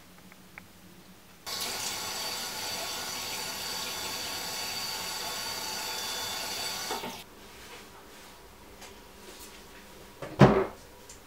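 Bathroom tap running into a washbasin with a steady rushing hiss, starting abruptly about a second and a half in and stopping about seven seconds in, as a face is washed. Near the end, a single short thump as the mirrored bathroom cabinet door is swung open.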